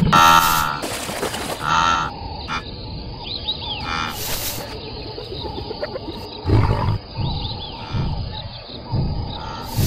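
Cartoon lionesses growling in several low pulses through the second half, with fast whoosh effects as animals dash off in the first two seconds and again about four seconds in; a few faint chirps in between.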